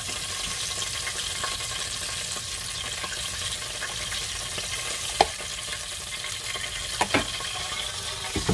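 Air-fried chicken thighs sizzling in the hot, open air fryer basket as they are turned over with tongs and a spatula. A few sharp clicks of the utensils against the basket come about five and seven seconds in. Near the end the basket clatters as it is pushed back into the fryer.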